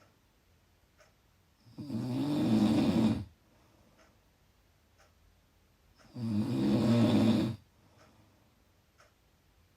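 A person snoring: two loud snores, each about a second and a half long, about four and a half seconds apart, with quiet between them. A few faint clicks come in the pauses.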